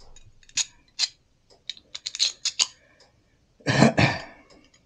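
A series of sharp clicks and light taps, then one louder clattering rustle lasting about half a second, nearly four seconds in.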